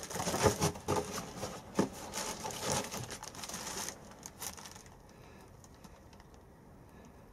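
Clear plastic bag crinkling and rustling as it is handled, in irregular bursts that die away after about four seconds.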